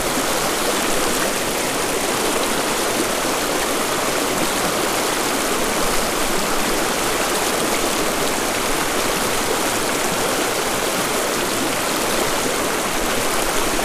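Fast river current rushing over rocks in a shallow riffle close by: a steady, even rush of water.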